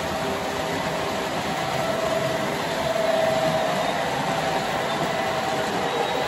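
Model trains running on a layout: a steady whir of the locomotives' electric motors with the rumble of wheels rolling on the rails, swelling slightly about three seconds in.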